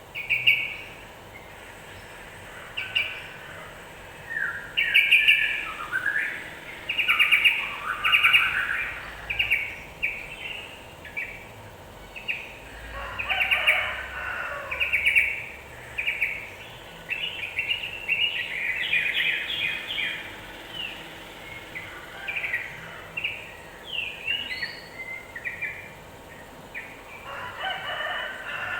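Yellow-vented bulbul (trucukan) song: short, bubbly chattering phrases repeated over and over at a brisk pace. It is a lure recording used to rile up kept bulbuls.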